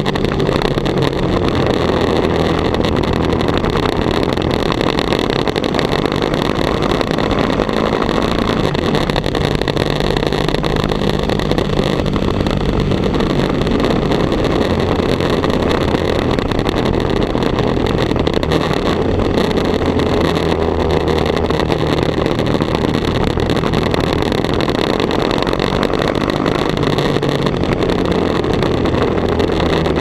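Sport motorcycle engine running at a fairly steady pace, its pitch shifting only gently, under a heavy rush of wind noise on the camera microphone.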